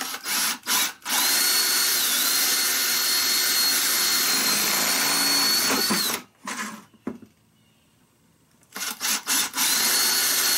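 Cordless drill with a 3/4-inch bit boring holes through the plastic lip of a bucket: a few short trigger bursts, a steady whining run of about five seconds, a pause, then more short bursts and another steady run near the end.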